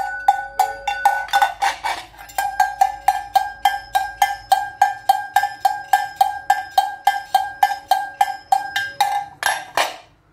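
Sheet-metal livestock bells with brass clappers shaken by hand, clanging steadily about four times a second with a ringing metallic tone. About two seconds in a second bell with a slightly different pitch takes over, and near the end a few harsher clangs come before the ringing stops.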